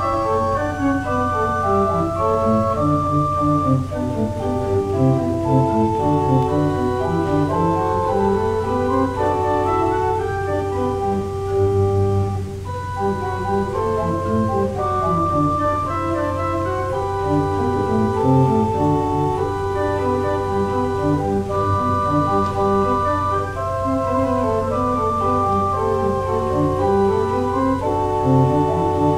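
Church organ playing a prelude: sustained chords with several moving lines over a steady low bass, with no pause.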